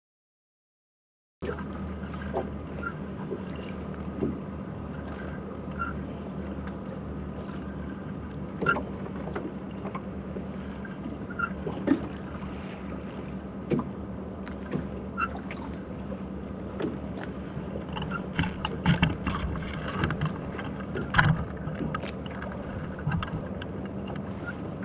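Sea sound picked up by an underwater camera lowered from a rowboat: a steady muffled hum with scattered sharp clicks, which come thicker for a few seconds near the end.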